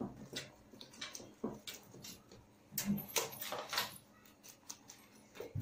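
Faint, irregular crunching and clicking of rabbits chewing carrot pieces.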